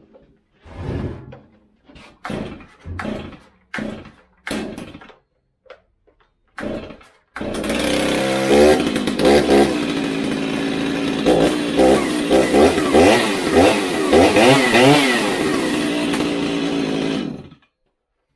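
Stihl MS 290 two-stroke chainsaw, converted to an MS 390, being pull-started: several short tugs on the starter cord before it catches about seven seconds in. It then runs, revved up and down several times, and is shut off abruptly about a second before the end.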